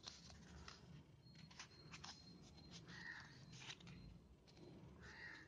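Near silence, with faint rustles and light taps of a thin cardboard sheet being handled and folded by hand.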